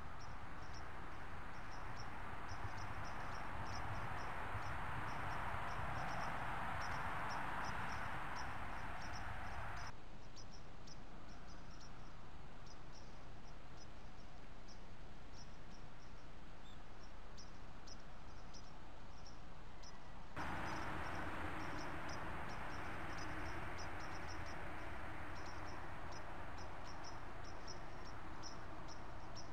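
Insects chirping in short, rapidly repeated pulses over a steady background hiss picked up by a trail camera. The hiss changes abruptly twice, about a third and two-thirds of the way through.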